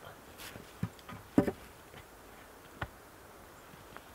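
A few faint, sharp wooden knocks and snaps, three or so spread through a quiet stretch, from green wooden poles being handled and trimmed of sharp stubs on a bed frame.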